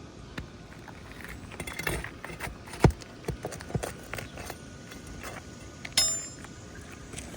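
Metal pry tool scraping and knocking against old asphalt shingles as they are worked loose, with a strong knock about three seconds in and a sharp ringing metal clink about six seconds in.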